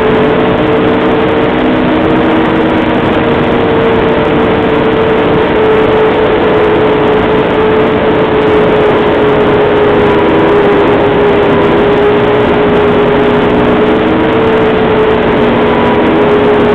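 Snowmobile engine running at a steady cruising speed, heard close up: one even drone that holds nearly the same pitch throughout, over a dense rushing noise.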